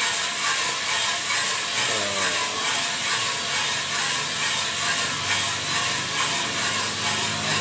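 Small drum coffee roaster running: a steady mechanical churning of beans tumbling in the turning drum, over an even hiss. It is early in the roast, with the beans still green.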